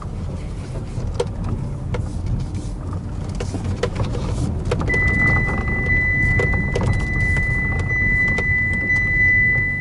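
2008 Mitsubishi Lancer X driving with a steady low rumble and irregular sharp knocks from the front end. The owner suspects a worn steering rack behind the knocking. About halfway through, a steady high-pitched tone starts and continues.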